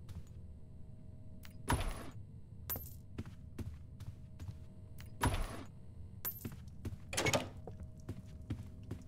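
A run of light clicks and knocks, with three louder thumps about two, five and seven seconds in, over a faint steady hum.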